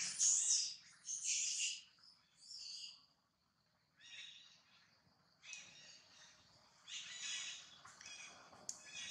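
Baby macaque crying in a run of shrill, high-pitched squeals, with a short pause about three seconds in.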